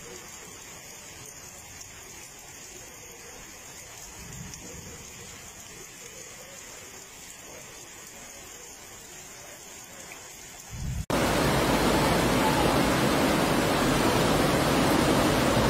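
Soft, steady hiss of rain and floodwater. About eleven seconds in, it cuts abruptly to a much louder, steady rush of a muddy flash-flood torrent pouring down a street.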